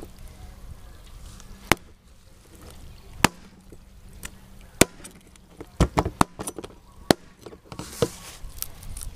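Knife cutting up a fish and striking a cutting board: a string of sharp, uneven knocks, with a quick cluster of several about six seconds in.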